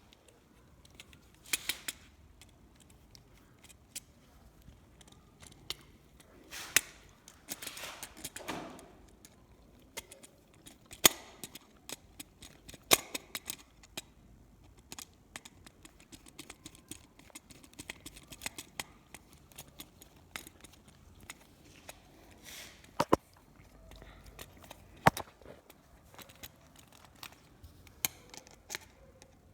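Handling noises from small parts and tools: irregular sharp clicks and taps, with a stretch of scraping and rustling about seven seconds in.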